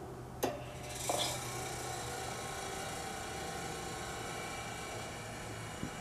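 A switch clicks, then about a second in the General Electric CK26 Monitor Top refrigerator's sealed compressor starts and runs with a steady hum.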